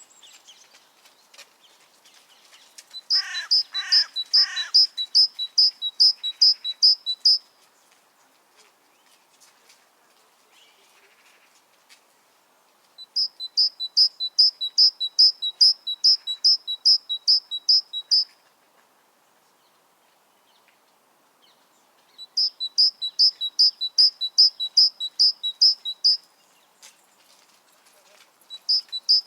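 Great tit singing its ringing two-note "teacher-teacher" song: three bouts of about four to five seconds each of quickly repeated high phrases, separated by pauses, with a fourth bout starting near the end. Three lower sliding notes sound under the start of the first bout.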